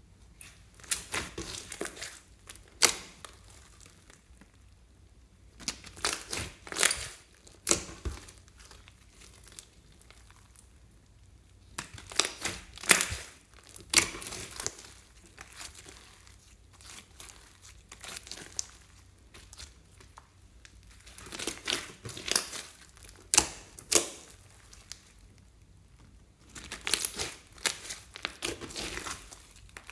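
Thick slime mixed with glitter and star sequins being kneaded, folded and pressed by hand on a wooden table, giving sticky crackles and wet pops. They come in bunches every few seconds with quieter stretches between.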